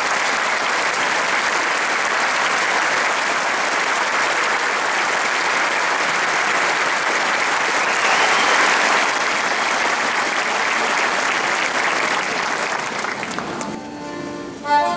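A concert hall audience applauding steadily, swelling a little about eight seconds in. Near the end the applause dies away and an accordion begins playing held notes.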